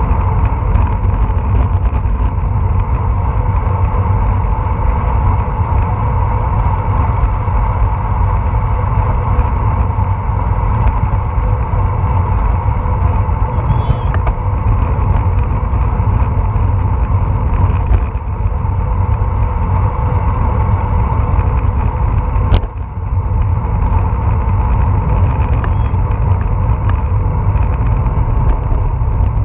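Steady rush of wind buffeting an action camera's microphone on a moving bicycle, mixed with tyre and road noise. A single sharp knock comes about two-thirds of the way through.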